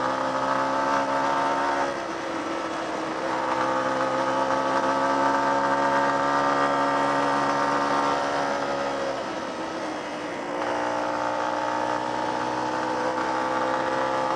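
Small off-road motorcycle engine running under way, with the throttle eased off twice, about two seconds in and again around ten seconds, then opened up again.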